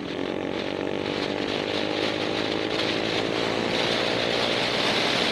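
Motorcycle engine running at a steady pitch, heard from the rider's seat. It grows gradually louder, with wind rush rising over it.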